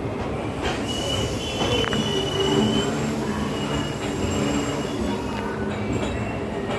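Express train passing close by at speed, its wheels running on the rails with a steady rumble and a high squeal that starts and stops a few times.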